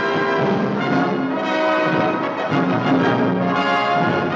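Orchestral closing music with brass (horns and trombones) playing sustained chords.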